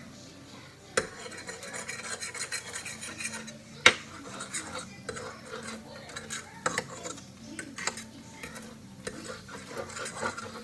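Cooking utensil scraping and tapping against a pan as eggs are cooked into an omelet, with a sharp clink about a second in and a louder one near four seconds, then scattered lighter taps.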